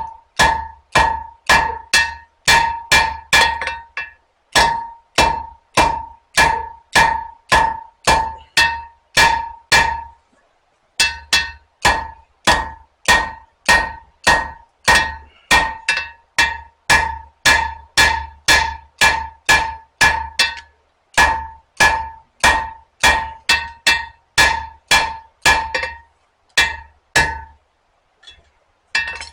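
Blacksmith's hand hammer striking hot spring steel on an anvil, about two blows a second in runs with short pauses, each blow ringing. The steel is being necked in between the blade and handle sections of a knife blank.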